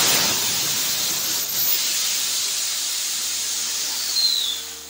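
A supersonic jet of compressed air from an 11-gallon, 100 psi accumulator blasting through a convergent-divergent rocket nozzle: a loud, steady rushing hiss that slowly eases as the tank empties. A short falling whistle comes near the end, as the flow dies away about four and a half seconds in.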